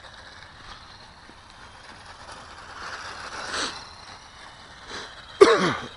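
Small electric motors of a radio-controlled Super Cub model plane swooping low at an RC truck, with a mechanical whirr and a swell as it passes about three and a half seconds in. Near the end comes a sudden loud burst that falls in pitch as the plane skims past the truck.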